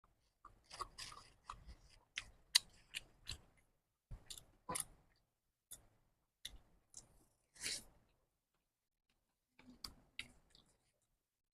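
A person chewing a mouthful of Indomie instant noodles close to the microphone: irregular short, wet smacks and clicks of the mouth, with a pause near the middle and a few more chews near the end.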